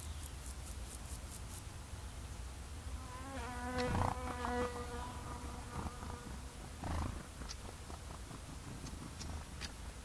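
A flying insect buzzing past the microphone for about two seconds, its hum rising briefly in pitch at the start, over a low wind rumble. A run of faint high ticks comes in the first second and a half, and a soft thump about seven seconds in.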